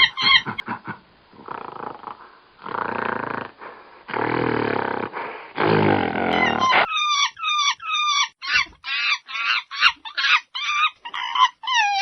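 Monkey calls: three long, rough, roaring breaths over the first seven seconds, then a fast run of high, wavering cries, about two a second.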